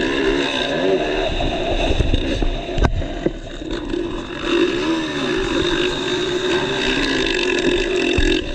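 Motocross dirt bike engine, heard on board, revving up and down as the rider works the throttle and gears through the ruts. A sharp knock about three seconds in.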